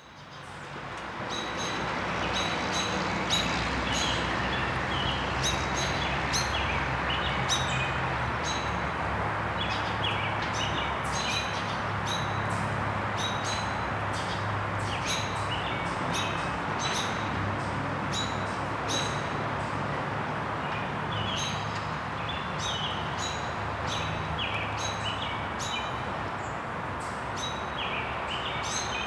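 Birds chirping over and over, short high calls every half second or so, over a steady rushing background and a low drone. The sound rises in from a brief dip over the first couple of seconds.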